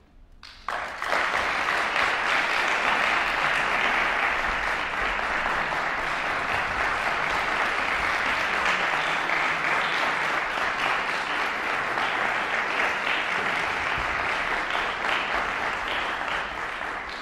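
Audience applauding, breaking out suddenly about half a second in after a brief hush and continuing as steady, dense clapping that begins to fade near the end.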